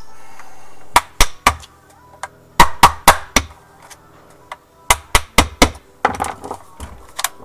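Sharp knocks and clinks of tools and parts on an airsoft M4 rifle being taken apart, coming in quick groups of three or four hits with short pauses between.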